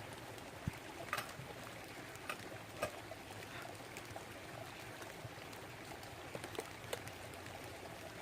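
A brook babbling steadily, with a few scattered sharp taps over it.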